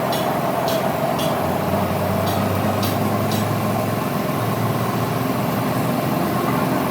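A motor running steadily, with a few light clicks in the first few seconds.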